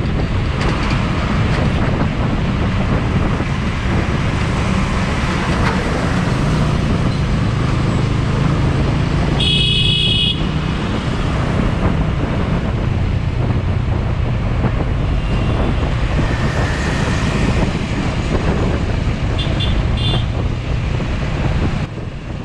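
Motorcycle engine running steadily under way in dense road traffic, with the rush of passing vehicles. A vehicle horn honks for about a second near the middle, and short horn toots sound near the end.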